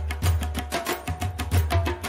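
Background music with a quick, steady percussion beat over a deep bass line.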